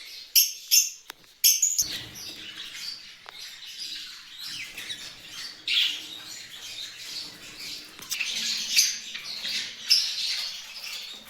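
Fischer's lovebirds calling: a few loud, sharp chirps one after another in the first second and a half, then a flock's continuous high-pitched chatter.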